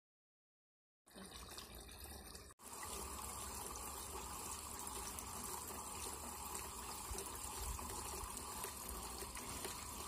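Water pouring in a steady stream from a plastic oil can's spout and splashing into a carton below, a homemade fountain running. It starts about a second in, with a brief break in the sound about two and a half seconds in.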